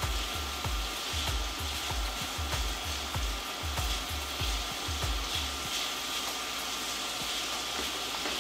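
Diced onion and green bell pepper sizzling in an enameled braiser as a sofrito while a silicone spatula stirs them. There are soft low knocks about three a second until roughly two-thirds of the way through. The onion is sweating out its liquid and loosening the browned bits on the pan bottom.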